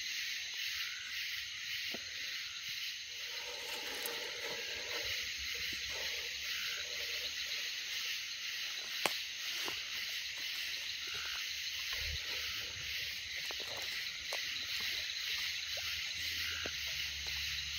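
Steady chorus of night insects, a dense high pulsing hiss, with scattered faint clicks and knocks, the sharpest about nine seconds in.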